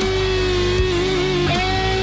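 1991 Gibson Les Paul Standard electric guitar playing a held lead note that wavers slightly in pitch, with a new note picked about a second and a half in.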